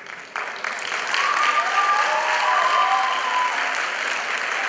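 Audience applauding and cheering, swelling about a second in.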